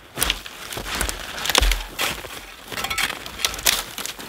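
Frozen, ice-coated branches being snapped and broken off by hand: a run of sharp cracks and brittle snaps with rustling twigs, the loudest snap about a second and a half in.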